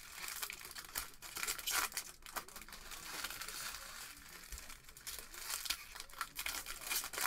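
Foil wrappers of Panini Prizm basketball retail card packs crinkling and tearing as packs are ripped open by hand, with many sharp crackles and a louder one near the end.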